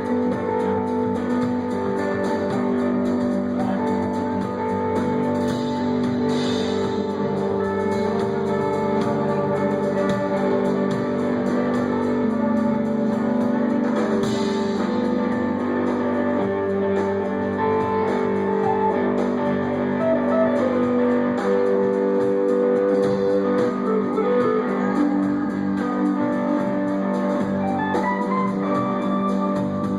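Live rock band playing an instrumental passage led by guitar, with bass underneath; near the end a run of notes climbs upward.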